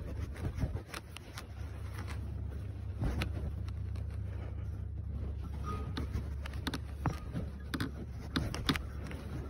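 Scattered light clicks and taps of hand work on a snowmobile's clutch, over a steady low hum.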